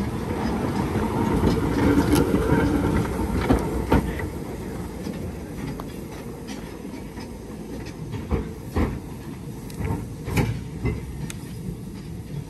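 Small saddle-tank steam locomotive running past at close range, its exhaust beats and wheel clatter loudest in the first four seconds and then falling away, with a few sharp clanks later on.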